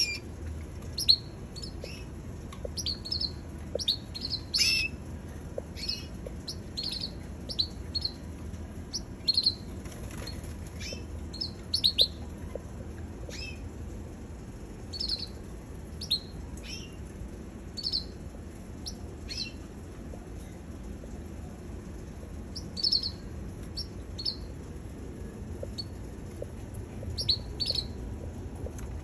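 Domestic canary giving short, separate high chirps and calls, spaced a second or so apart with a few longer pauses, over a steady low hum.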